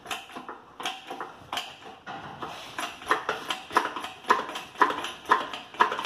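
Hammer knocking repeatedly on the end of a VW MQ200 gearbox shaft held in a press frame: a series of sharp metal knocks, about two a second.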